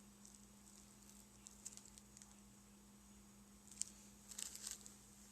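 Faint crinkling of a small plastic bag being handled: a few light crackles at first, then a louder run of crinkles near the end.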